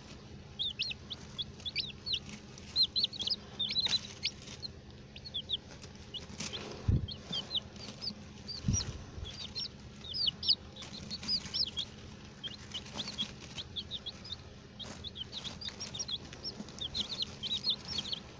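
Several baby chicks peeping constantly, a dense run of short high-pitched cheeps. Two dull low bumps come about seven and nine seconds in.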